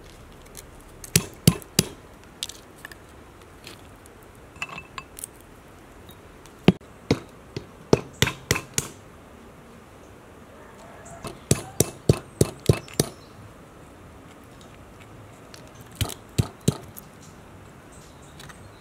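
Walnuts in their shells being cracked with hard hand-struck blows: sharp knocks in short runs of a few strikes, with pauses between runs.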